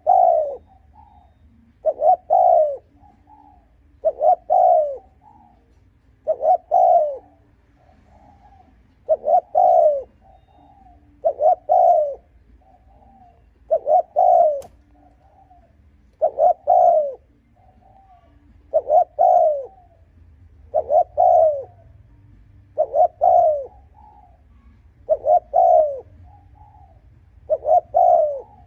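Spotted dove cooing over and over: a loud phrase of low, quick coos about every two seconds, with a softer short note between phrases. This is the rapid 'thúc gù' cooing used as a lure call to rouse wild doves.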